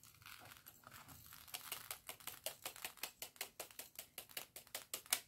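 Small round resin diamond-painting drills tipped out of a mini desktop bead vacuum onto a canvas, pattering down in a quick run of small clicks that starts about a second and a half in. The vacuum's motor is not running.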